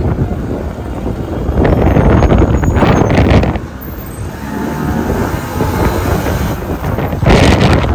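Wind rumbling on a handheld phone's microphone over busy street noise, rising and falling in gusts with a brief lull about halfway through.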